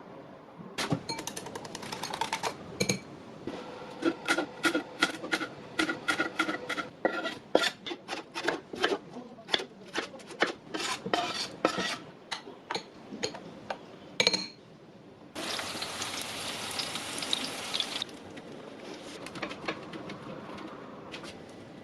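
Metal kitchen utensils clinking, knocking and scraping rapidly and repeatedly against a ringing steel bowl or pan, as in stirring or mixing. About fifteen seconds in comes a steady hiss lasting around three seconds, then a few quieter knocks.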